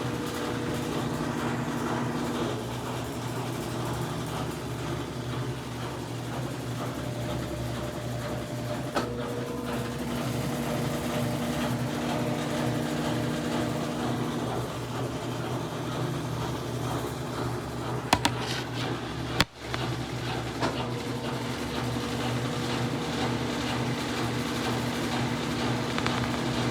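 Consul CWG12 washing machine running through its wash cycle: a steady motor hum whose tone shifts every few seconds, with a few sharp clicks about two-thirds of the way in.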